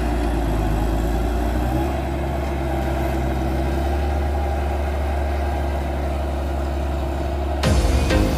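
Large tractor's diesel engine running steadily under load while pulling a plow through the soil. Music cuts in near the end.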